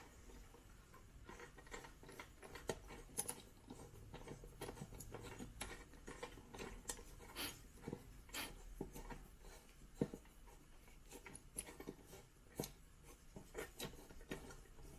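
Faint, irregular clicks, taps and scraping of a Phillips screwdriver and small metal parts being worked on an Instant Pot's thermostat screws, with a few sharper clicks scattered through.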